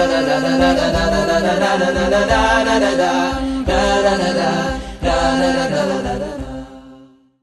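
A cappella vocal chanting, several voices over a held low drone, fading out near the end.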